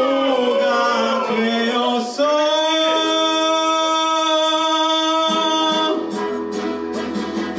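A man singing into a microphone over a backing track. He holds one long note in the middle, and a drum beat with bass comes in near the end.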